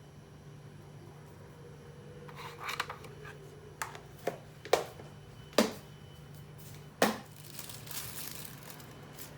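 Kitchen handling sounds while preparing dough ingredients: a packet rustling and crinkling, then a few sharp knocks and clicks of utensils or containers being set down, then more rustling.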